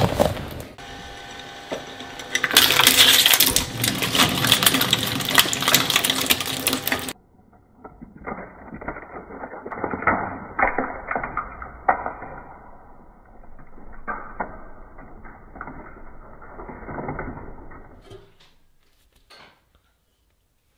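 Twin-shaft metal shredder running and tearing into a squishy stress ball, a loud crunching stretch of a few seconds. It then changes abruptly to a duller, muffled run of crackling clicks and pops lasting about ten seconds, which stops near the end.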